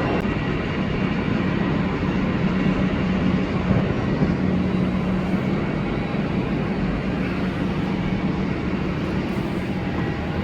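Jet airliner noise, a steady loud rush with a low hum and no let-up.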